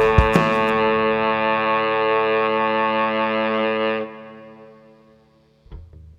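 Background music: a distorted electric-guitar rock track ends on a held chord that rings for a few seconds and then fades out about four seconds in.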